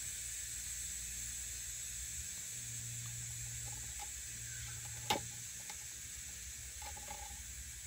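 Faint steady hiss over a low hum. There is one sharp click about five seconds in and a few soft clicks near the end, as parts are handled at the small two-stroke engine.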